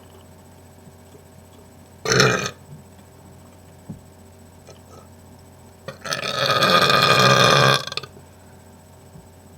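A man burping on command, with no drink beforehand: a short burp about two seconds in, then a longer, louder burp of about two seconds starting about six seconds in.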